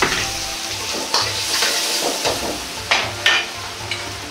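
Diced vegetables and tomato sizzling in hot oil in a wok as they are stir-fried, with a metal ladle scraping and clacking against the wok several times, two sharp clacks close together about three seconds in.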